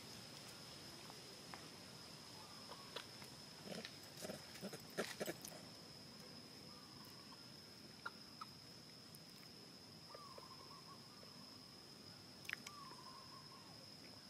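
Faint outdoor animal sounds over a steady high-pitched drone. A cluster of short clicks and grunts comes about four to five seconds in, and two brief wavering calls follow near the end.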